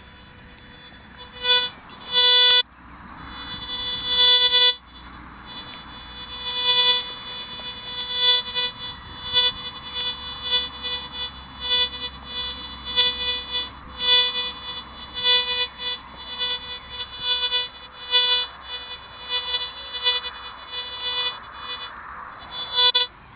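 Golden Mask metal detector's audio signal: a buzzy mid-pitched tone, sounding as a few long beeps and then short beeps about one or two a second as the coil sweeps over the empty hole. The test coin has been dug out, so the beeps are the detector's response to the disturbed soil of the hole, the so-called hole effect.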